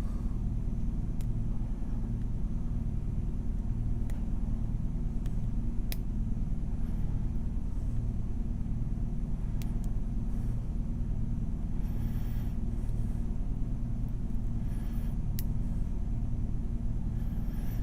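A steady low hum throughout, with a few faint, sharp clicks scattered through it: a lock pick and tension wrench working the pins of a Tru Bolt padlock.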